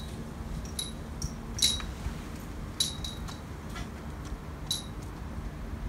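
Light metallic clinks, about seven, scattered unevenly, each ringing briefly at a high pitch, over a faint steady low hum.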